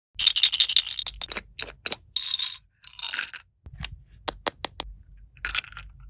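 Small hard plastic toy pieces clicking and tapping, with short bursts of crinkling packaging.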